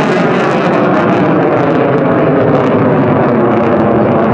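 Loud, steady jet noise from a USAF F-16 fighter's single engine as it climbs steeply overhead.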